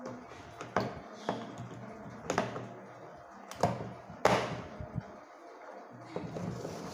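Metal poster-colour tin and small plastic paint jars handled on a wooden table: a few sharp knocks and clicks as the tin lid is shut and the tin is moved, with a softer rubbing sound near the end.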